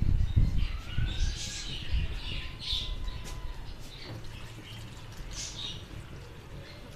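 Small birds chirping in short bursts, with a faint rising whistle in the first second and a half. Heavy low thuds and bumps in the first two seconds are the loudest sound.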